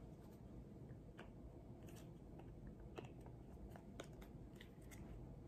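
Faint, scattered clicks and taps of plastic breast-pump parts being handled and fitted together as the membranes are pressed onto the cup.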